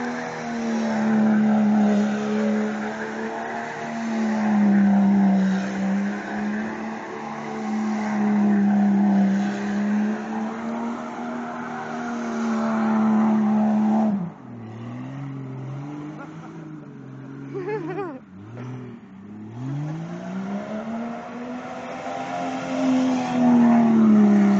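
A 4x4 doing donuts, its engine held at high revs with the pitch wavering as it circles. About 14 seconds in the revs drop suddenly and the sound falls quieter. The engine revs back up a few seconds later and is running hard again near the end.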